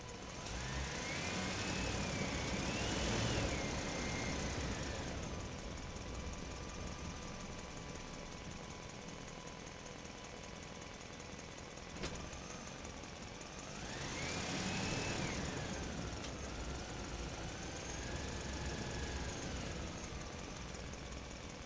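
Small electric motors of radio-controlled toy construction vehicles whining in two bouts, the pitch rising and falling as they speed up and slow down, with a single click in between.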